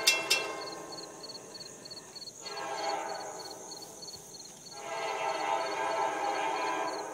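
CSX freight locomotive horn giving two blasts as a salute: a shorter one about two and a half seconds in, and a longer one from about five seconds until near the end.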